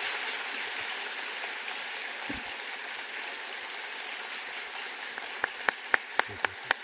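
Audience applauding, the clapping gradually thinning out. Near the end a run of sharp, evenly spaced claps or clicks, about four a second, stands out above it.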